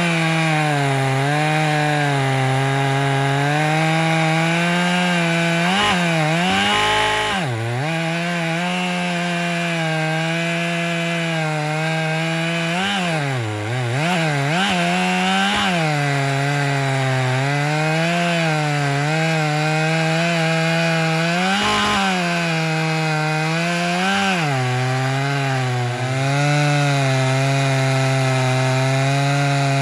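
Chainsaw held at full throttle in a chainsaw mill, ripping lengthwise through a pine log to cut a slab. The engine's pitch holds steady but dips briefly a few times as the cut loads it, around a quarter, half and three quarters of the way through.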